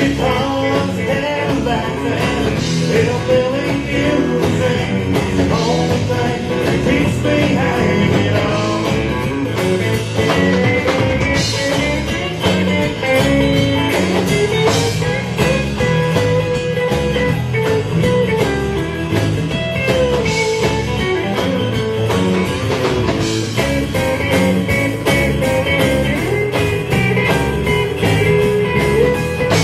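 Live country band playing: acoustic and electric guitars over bass and drums, with no break.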